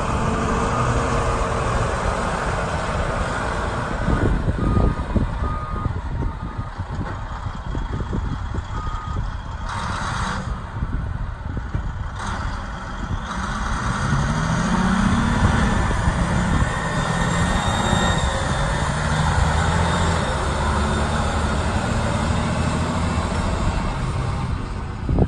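Volvo A40E articulated dump truck's six-cylinder diesel engine running, with short high reversing-alarm beeps scattered through roughly the first ten seconds. In the second half the engine pitch rises and falls as the truck is worked and drives off.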